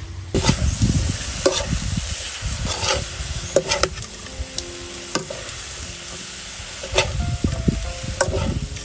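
Food sizzling as it fries in a hot pan while a utensil stirs and scrapes it, with several sharp clacks of the utensil against the pan.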